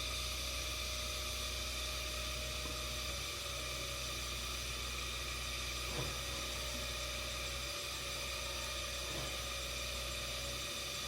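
Steady hissing background noise with a low rumble and a faint steady tone, broken once by a brief click about six seconds in.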